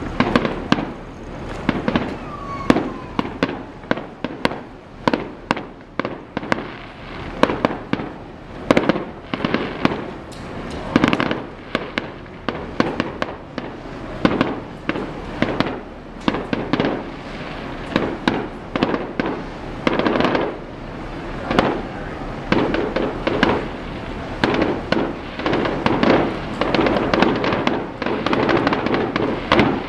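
Fireworks display: a continuous run of sharp bangs and crackles, about one or two a second, each with a rolling echo.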